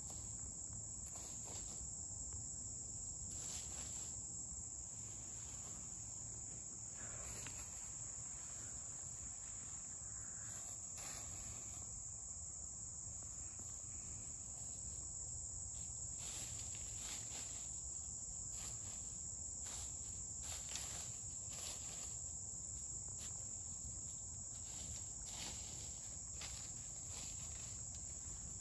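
A steady, unbroken high-pitched insect chorus of summer woodland, with short scattered rustles of hens scratching and stepping in dry leaf litter.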